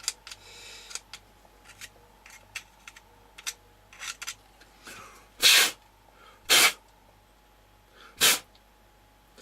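Three short, sharp hissing bursts about a second apart in the second half, used to clear grit out of an RC car's differential cover, after light clicks and rustling from the small parts being handled.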